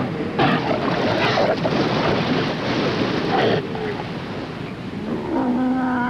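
New Zealand sea lions calling at the surf line, a bull and a cow growling and roaring over the wash of breaking waves, with a longer, steadier call near the end.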